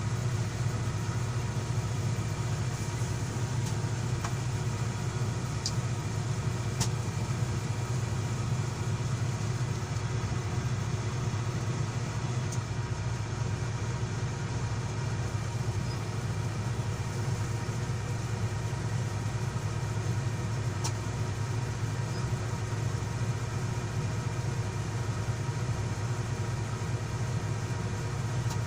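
Komatsu 220 excavator's diesel engine running steadily, with a constant low hum and a few faint isolated clicks.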